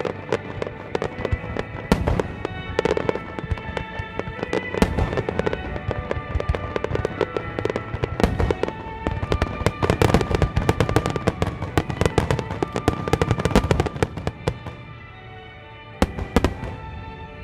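Wide starmine firework display: a rapid barrage of aerial shells bursting and crackling, with music playing underneath. The bursts thin out about fifteen seconds in, followed by a couple of sharp booms near the end.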